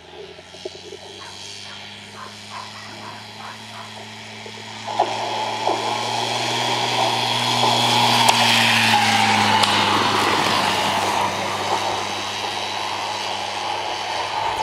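Greyhound track's mechanical lure running along its rail: a steady motor hum and a rushing, rattling sound that grows louder as the lure and the racing greyhounds sweep past, loudest about eight seconds in, then fading. A sharp clank about five seconds in, as the starting traps spring open.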